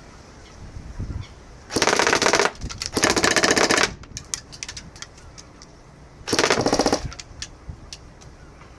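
CYMA MP5 Platinum airsoft electric gun firing full-auto bursts, its gearbox cycling rapidly: two bursts of under a second close together, then a shorter third burst a few seconds later, with scattered faint clicks in between.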